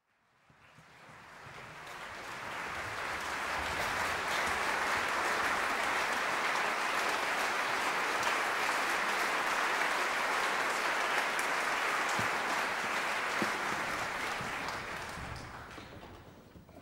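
Concert audience applauding, swelling over the first few seconds, holding steady, then dying away near the end.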